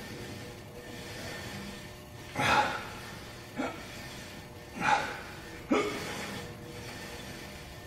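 A man breathing hard through cable pulldown reps: a strong breath out about every two and a half seconds, each followed about a second later by a short sharp sound.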